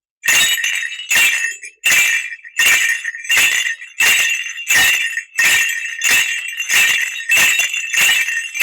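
Small cattle bells shaken in a steady walking rhythm, a jingle about every three quarters of a second, imitating the bells on a bullock pulling a cart; one bull's layer of a foley effect.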